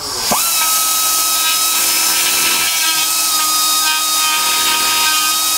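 Pneumatic die grinder spinning up with a quick rising whine, then running at a steady high whine with a strong hiss of air, its bit grinding a mounting hole on a motorcycle gas tank out into a slot.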